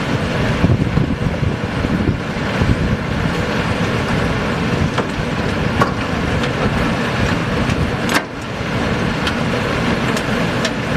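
Diesel engine of a BTR-80 armoured personnel carrier running steadily with a dense low rumble, with a few light clicks over it.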